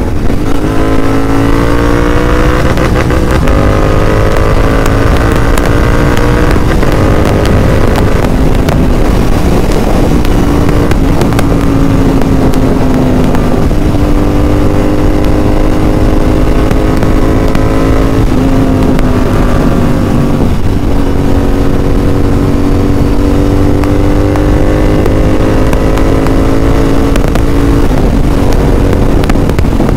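Royal Enfield Interceptor 650's parallel-twin engine running through a Red Rooster full-system aftermarket exhaust while the motorcycle accelerates on the road. The exhaust note climbs steadily in pitch and drops back a few times.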